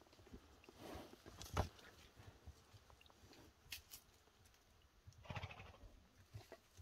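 Horses moving about close by: faint scattered hoof thuds and rustling, with two soft noisy puffs about a second in and again after five seconds.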